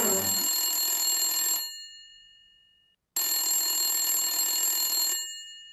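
Telephone ringing twice, each ring lasting about two seconds with a silent pause between them.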